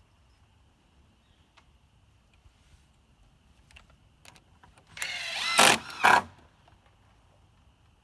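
Power drill driving a screw into timber: a burst of about a second and a half, about five seconds in, with the motor whine rising and then two hard surges as the screw seats. A few light taps come before it.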